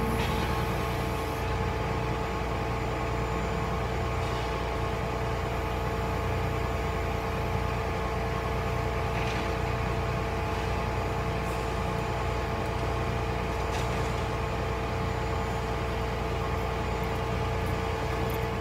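Heavy diesel engine idling steadily: a constant low drone with a steady whine held over it.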